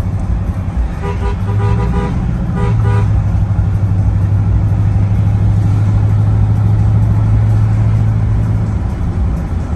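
Car running at road speed, heard from inside the cabin as a steady low drone that swells about a second and a half in and eases off near the end. A car horn toots a few short times between about one and three seconds in.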